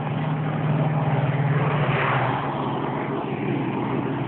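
A motor vehicle passing by, its engine hum steady and its noise swelling to a peak about halfway through, then easing off.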